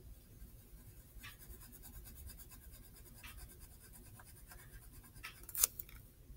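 Pencil sketching on paper: soft scratching strokes, with a sharp tick about every two seconds and one louder click about five and a half seconds in.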